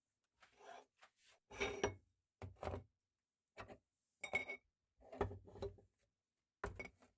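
About seven short bursts of knocking, rubbing and clinking of hard objects being handled, with silence between them.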